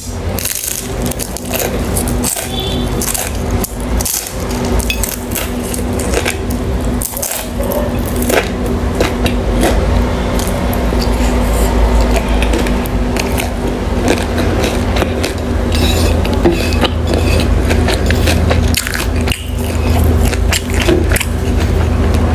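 Eating sounds: utensils clicking and scraping against a dish, with many short clicks throughout.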